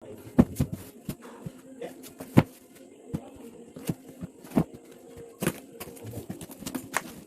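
Irregular knocks, clicks and rustles of objects being handled, the loudest two sharp knocks about half a second and two and a half seconds in, over a faint steady hum.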